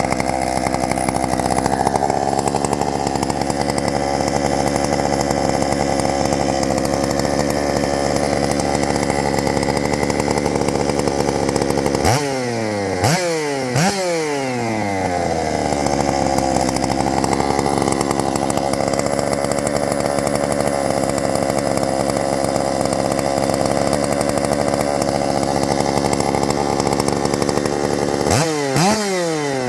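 Stihl MS461 76.5cc two-stroke chainsaw running steadily, with three quick blips of the throttle about twelve seconds in and three more near the end, the engine note shooting up and falling back each time.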